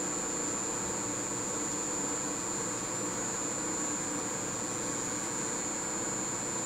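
Steady machine hum with a constant high-pitched whine over it, no cutting and no change in pitch.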